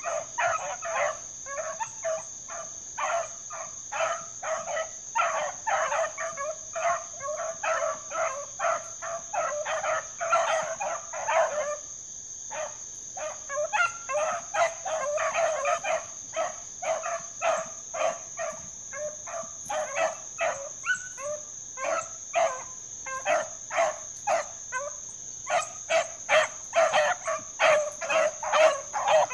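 A pack of rabbit dogs with young puppies among them, barking and baying over and over as they run a rabbit, with a brief lull about twelve seconds in. A steady high-pitched insect drone runs underneath.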